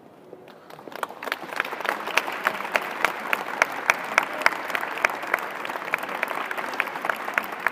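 Audience applause starting about a second in and building quickly to steady clapping, with one pair of hands close by clapping loudly above the rest, about three claps a second.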